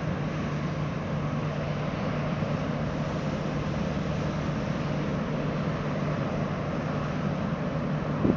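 A large car ferry's engines running steadily as it arrives in port: a constant low hum over an even rumble and hiss.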